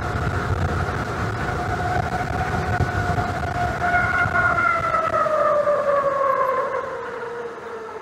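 5000 W 72 V e-bike hub motor whining steadily at full-throttle top speed over a low rumble. From about five seconds in, the whine slides down in pitch and the rumble fades as the bike slows.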